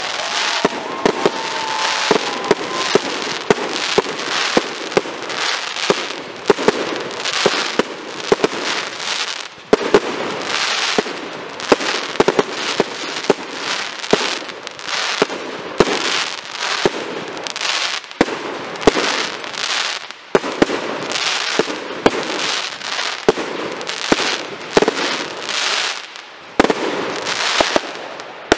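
Aerial fireworks display: shells and comets launching and bursting in a dense barrage of sharp bangs, several a second, with a constant crackle between them.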